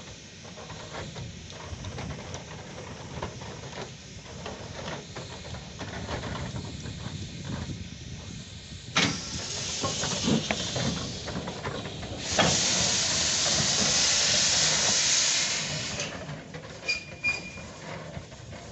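Peckett saddle-tank steam locomotive venting steam: a sudden hiss about halfway through, then a loud steady hiss of steam lasting about four seconds, over the engine's low rumble.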